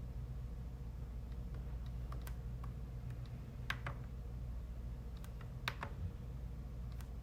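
Scattered computer keyboard keystrokes, about seven sharp clicks with some in quick pairs, over a steady low hum.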